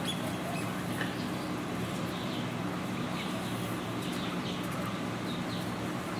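Guinea pigs giving short, faint squeaks here and there over a steady low hum.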